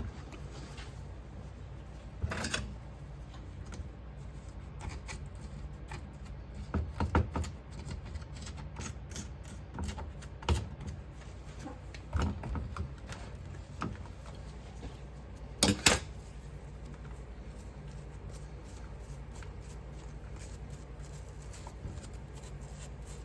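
Scattered clicks and knocks of a sand-casting flask being handled and a cast silver piece being dug out of Petrobond sand, with one louder knock about two-thirds of the way through, over a faint low hum.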